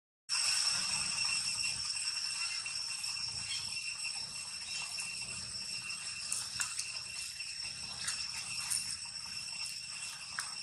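Steady, high-pitched insect chorus holding a few fixed pitches, after a brief dropout at the start.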